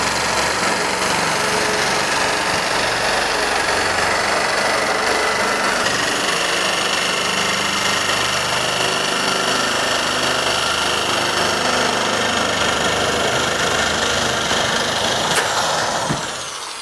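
Electric double-cut metal shears running steadily as the up-and-down blade cuts along a standing seam metal roofing panel; the tool winds down shortly before the end.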